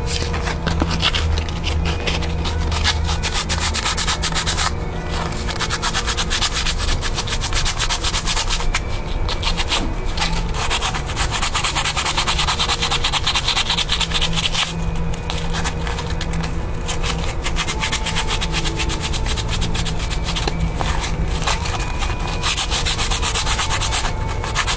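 Sandpaper rubbed rapidly back and forth over rusty metal: the contact faces of a lawnmower's ignition coil and spark plug being cleaned, in spells of several seconds broken by short pauses. The rust is being sanded off because it weakens the spark.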